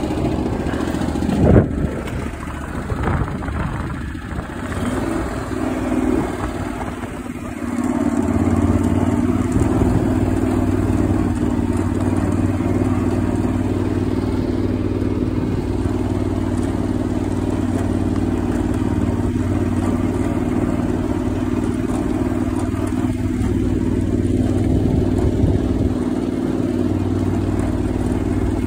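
Riding lawn tractor's engine running as it drives across a lawn, its hum becoming louder and steadier about eight seconds in. A single sharp knock sounds about a second and a half in.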